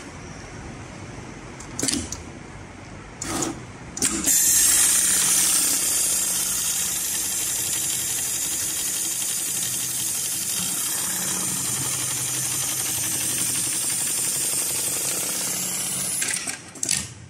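HighTex MLK500-2516ECO programmable heavy-duty pattern sewing machine: a few sharp clacks, then about twelve seconds of steady high-speed stitching as it sews a box-X pattern through thick synthetic lashing-strap webbing, ending with two more clacks.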